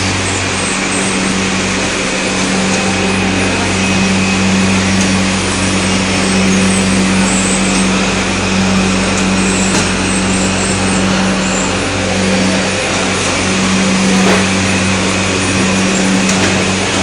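Shrink-wrap label tunnel machine running: a steady rush of blowing air over a constant low hum.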